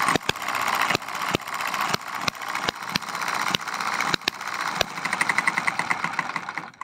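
Eachine hit-and-miss model engine running well on naphtha (Waschbenzin): sharp firing pops at irregular gaps of about half a second over a steady mechanical clatter. A little before five seconds in the firing stops and the engine coasts with a rapid, even ticking, then the sound cuts off at the end.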